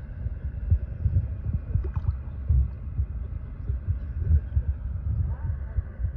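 Irregular low rumbling and thumping of wind buffeting the microphone.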